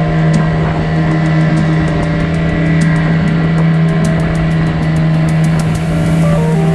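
Boat's outboard motor running steadily at cruising speed: a loud, even hum that holds one pitch throughout.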